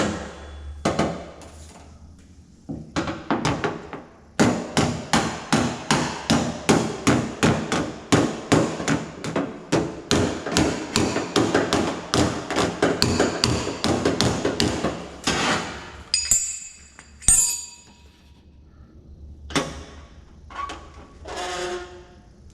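Light body hammer tapping a steel car door panel against a dolly held behind it. After a few scattered taps it settles into a long even run of about four strikes a second, then stops, followed by a few metallic clinks and one louder knock.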